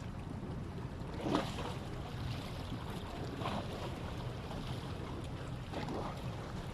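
Steady outdoor wind and water noise, a low rumble, with three brief louder noises about a second and a half, three and a half and six seconds in.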